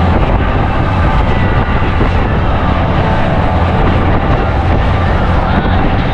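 Boat engine running steadily underway: a continuous low drone with rushing noise over it.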